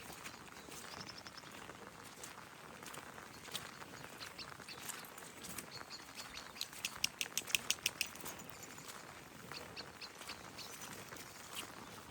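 Small woodland birds chirping and calling, with a fast run of sharp chattering notes about seven seconds in.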